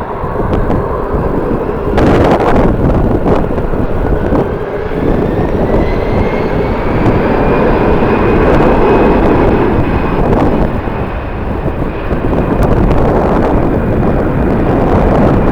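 Jet airliner engines with a whine that climbs in pitch over about eight seconds and then holds steady, under loud wind buffeting on the microphone.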